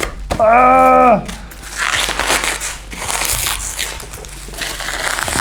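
Keyboard packaging being wrestled open: irregular crackling, crushing and tearing of the box and its wrapping. About half a second in, a short drawn-out groan of frustration from the person opening it.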